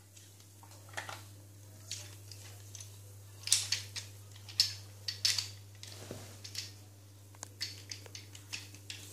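Plastic transforming toy robot car being handled, its parts clicking and snapping as they are folded: irregular light clicks, with a few louder snaps about halfway through.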